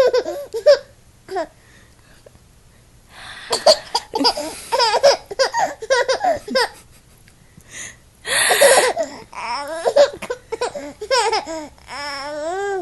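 Baby laughing in repeated fits, with babbling between, set off by someone's mock sneezes. A short breathy burst comes about eight seconds in, and a long wavering, squealing voice sound near the end.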